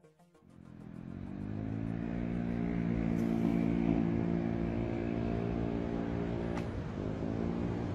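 An engine running steadily with a low hum. It comes in about half a second in and swells over the next second, with a short click near the end.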